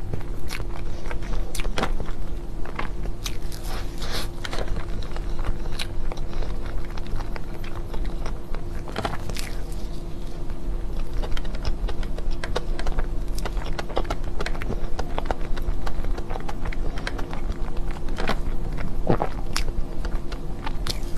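A person biting and chewing chocolate cake up close, with irregular moist clicks and crunches from the mouth. A steady low hum runs underneath.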